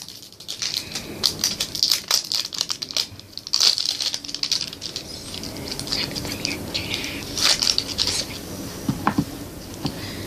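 Plastic packaging crinkling and crackling as a small barrel of slime is opened, in dense, irregular quick crackles.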